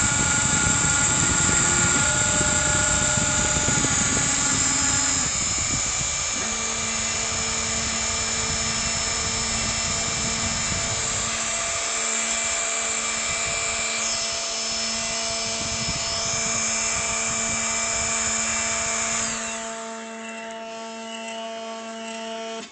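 CNC router running, its spindle cutting into wood, with steady tones from the drive motors that shift in pitch a few times as the machine moves. Near the end the spindle's high tone slides down as it winds down, leaving a quieter steady motor hum.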